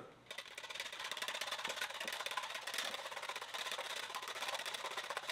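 Wire whisk beating eggs in a small plastic bowl: rapid, even clicking of the wires against the bowl.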